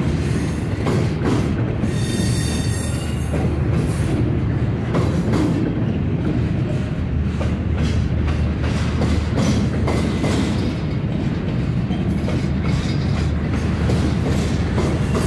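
Norfolk Southern freight train cars rolling past with a steady heavy rumble and irregular wheel clicks over the rail joints. A faint high wheel squeal comes in about two seconds in.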